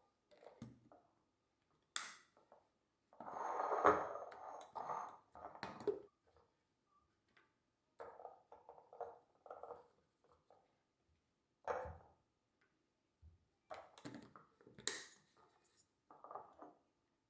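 Kitchen handling sounds: dishes and utensils set down and moved, with scattered knocks and clinks and a stretch of scraping a few seconds in.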